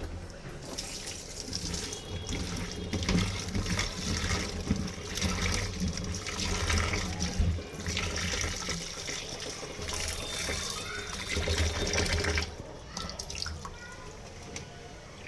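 Kitchen tap running and splashing into a sink, stopping about twelve seconds in.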